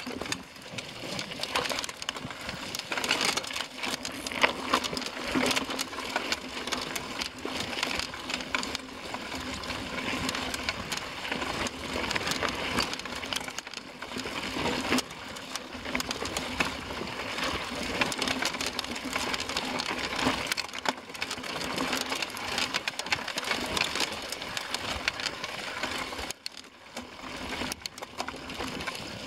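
Mountain bike rattling and clattering over a rough, rocky dirt singletrack, with tyres crunching on gravel and the frame and components shaking in a dense, continuous stream of small knocks. Briefly quieter about three-quarters of the way through.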